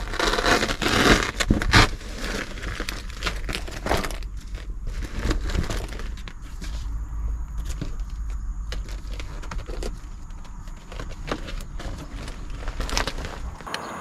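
Rustling, crinkling and light knocks from handling and fitting a cardboard windscreen shade in a small vehicle cab, busiest in the first couple of seconds, over a low steady rumble that stops just before the end.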